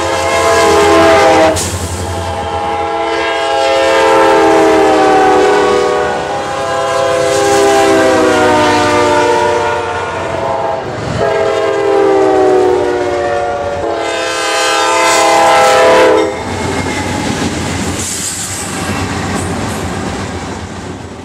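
Diesel freight locomotives' multi-chime air horns sounding a series of long blasts at grade crossings, several of the chords sliding down in pitch as the trains pass. In the last few seconds the horn stops and the rushing noise of a passing train continues.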